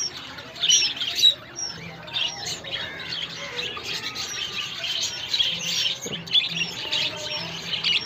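A colony of budgerigars chattering: many overlapping high chirps and squawks without a break.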